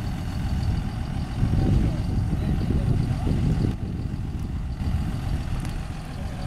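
John Deere 6920 tractor's six-cylinder diesel engine idling while the tractor stands still, a steady low rumble.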